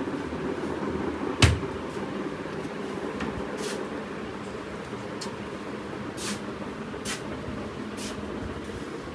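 A wooden cupboard door knocking shut sharply about a second and a half in, then several fainter clicks and knocks of rummaging among the pharmacy shelves, over a steady low background rumble.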